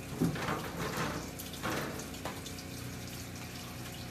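Water running and splashing in a three-compartment sink, in two louder gushes during the first two seconds, over the steady hum of the sink's small water pump.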